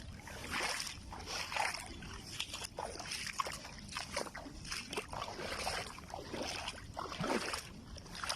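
Small waves sloshing and splashing irregularly at the shoreline, over a low rumble.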